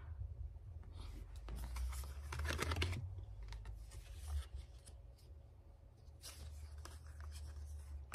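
Tarot cards being handled and slid across a wooden tabletop: faint scraping and rustling in a few short bursts.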